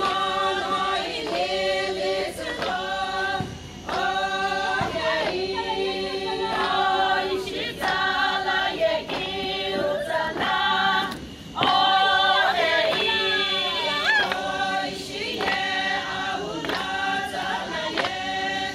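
Group of Sumi Naga women singing a traditional folk song together without instruments, in short repeated phrases broken by brief pauses, with falling slides between notes.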